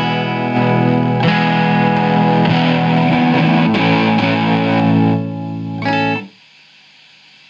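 Electric guitar played through a breadboarded Ultra Buzz-style fuzz pedal prototype into an amp, with the guitar's volume rolled down and the drive and colour up a bit, giving a nice, clean tone. A few strummed chords and notes ring out, then the strings are muted suddenly a little past six seconds in. That leaves a faint hiss and hum, which comes from the prototype's mess of long wires.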